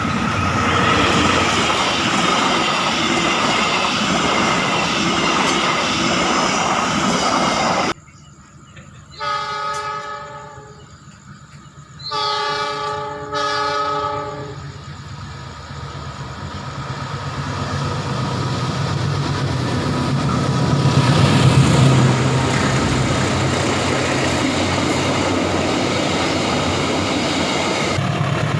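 Train running by with steady rail noise that cuts off suddenly. Then a diesel locomotive's chord horn sounds three times, one short blast followed by two longer ones close together. The locomotive's engine rumble and wheel noise then grow louder as it comes close and passes.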